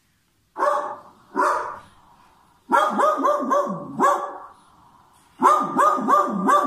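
Recorded dog barks from a children's animal-sounds video, played back through a Bluetooth speaker. Two single barks come about a second apart, then a quick run of barks, a short pause, and another quick run near the end.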